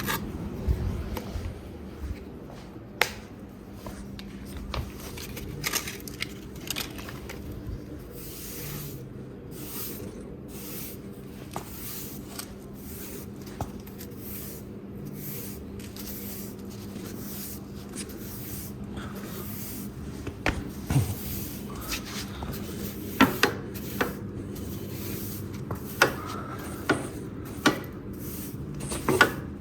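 Scraping and rubbing of a tool working in fireplace ash, with sharp knocks now and then, more of them near the end, over a steady low hum.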